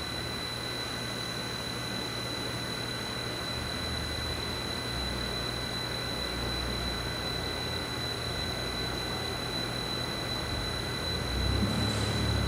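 Moore CNC jig grinder running as its table traverses along the X axis: a steady high-pitched whine over a low machine hum. The hum grows louder near the end.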